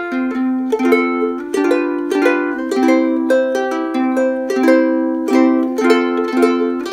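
A Kiwaya ukulele played solo, a steady run of plucked notes and chords, picked up by a Rode VideoMic Pro shotgun mic plugged into an iPhone.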